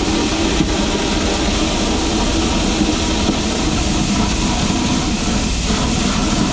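Ice pump running, extremely loud: a steady, dense rush of noise with a heavy low rumble, without a break.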